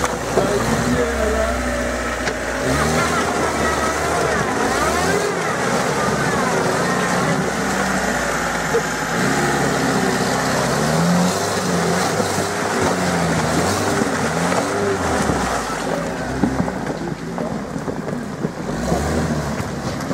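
Lada Niva's engine revving hard over and over, its pitch rising and falling, as the wheels spin and churn through thick swamp mud.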